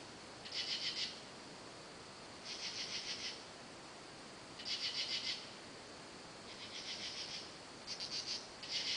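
Night insects calling: bursts of rapid, even chirping pulses roughly every two seconds over a steady high, thin trill, with the bursts coming closer together near the end.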